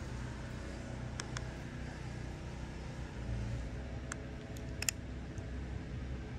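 A few short plastic clicks from handling a toy mini fishing rod's reel, two about a second in and three more about four to five seconds in, over a steady low background rumble.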